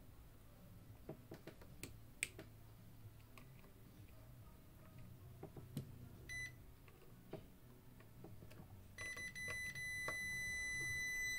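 Faint scattered clicks and taps, then a short high electronic beep about six seconds in. Near the end comes a long, steady beep of the same pitch.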